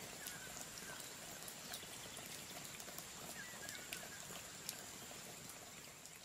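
Faint rural outdoor ambience: a soft steady hiss with a thin high-pitched tone held throughout, and a few short bird chirps and light ticks scattered through it.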